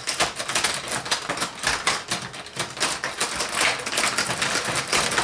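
Rock'em Sock'em Robots toy in a match: rapid, irregular clicking and clacking of plastic controllers and the figures' punching arms as both players hammer away.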